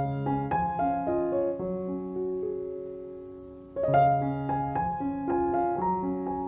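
Background piano music playing a slow melody of struck notes; a held chord fades away in the middle before the phrase starts again, louder, near four seconds in.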